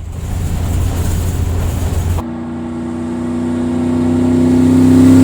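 A motor vehicle's engine running, cut off abruptly about two seconds in. It gives way to a steady, even-pitched engine drone that grows steadily louder.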